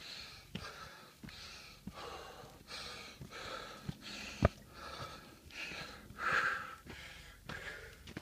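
A hiker breathing hard while climbing a steep dirt trail, with a breath about every two thirds of a second. Footsteps on the dirt click in between, and one sharper footfall about halfway through is the loudest sound.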